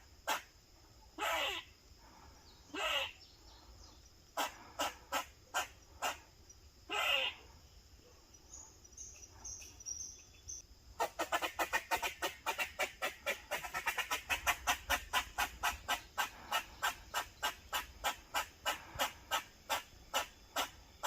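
Grey squirrel alarm-calling in protective behaviour: short sharp barks, with a few longer drawn-out calls in the first eight seconds. From about eleven seconds in, the barks come fast and even, about four a second.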